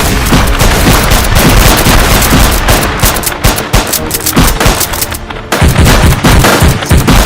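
Rapid, continuous machine-gun fire with booms, mixed with music; the firing eases briefly about five seconds in, then picks up again.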